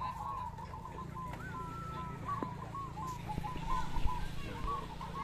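Many caged zebra doves (perkutut) cooing at once: a dense chorus of short, repeated, overlapping coos all near the same pitch.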